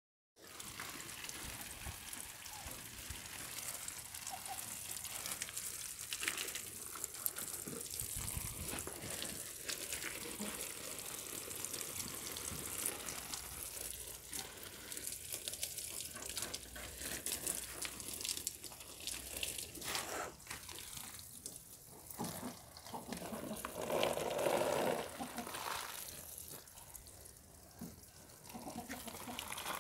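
Water spraying from a garden hose nozzle and splashing onto leaves and soil, a steady hiss that turns patchier after about twenty seconds. About five seconds before the end comes a louder, lower sound lasting about a second.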